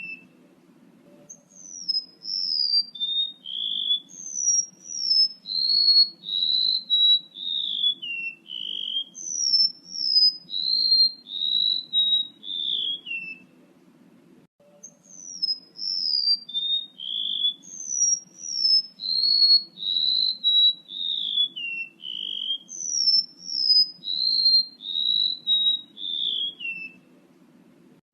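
Male rementuk laut bird's song played as a lure call: a long string of clear whistled notes, each sliding down in pitch. The phrase stops about halfway through and then starts again the same way, over a faint low hum.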